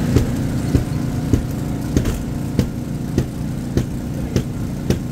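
A vehicle engine running steadily, with sharp regular clicks a little under two a second.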